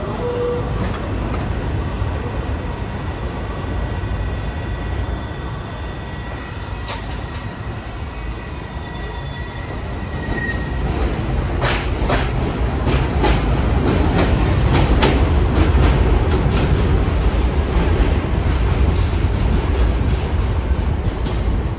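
New York City subway train running, a steady rumble that grows louder past the middle, with a run of wheel clicks over rail joints and a faint thin whine. A two-note falling chime ends right at the start.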